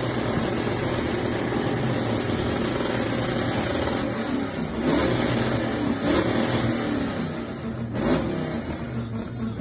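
Car engine held on a two-step launch limiter, stuttering and crackling steadily, with louder exhaust bangs about five, six and eight seconds in.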